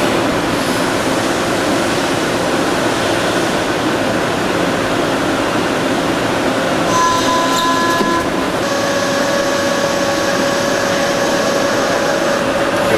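CNC turning centre machining metal: a steady, loud run of cutting and machine noise with a few thin tones that shift about halfway through.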